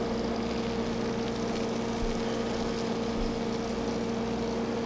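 Aquarium pumps running with a steady, unchanging hum and a faint hiss.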